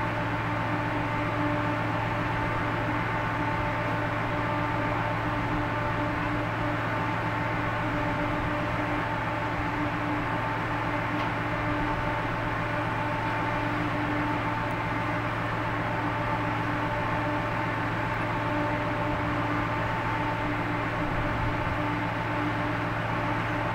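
Steady drone of a ship's engines and machinery: a constant low hum with a couple of steady higher tones over it.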